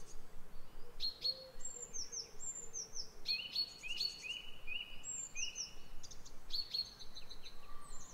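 Birds chirping and calling: quick high chirps repeating throughout, with a run of lower whistled notes in the middle.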